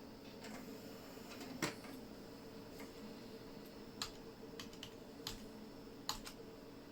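Computer keyboard keys pressed one at a time, about seven separate clicks with gaps between them, over the steady hum of the running PC.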